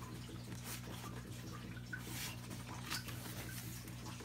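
Faint scattered clicks and creaks from a plastic taillight housing being pulled against its retaining clips, over a steady low hum.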